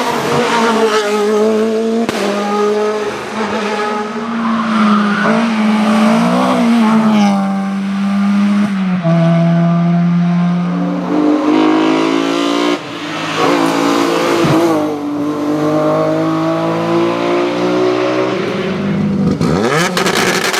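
Race car engine at high revs, its pitch climbing and then dropping in steps as it shifts gear several times. The engine note swells and fades as the car passes.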